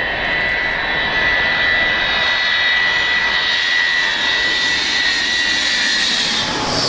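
Avro Vulcan XH558's four Rolls-Royce Olympus jet engines running loud, a high steady whine over the jet rush, the whine fading near the end.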